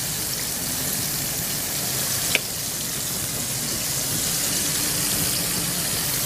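Steady hiss with a faint low hum underneath and one light click about two and a half seconds in.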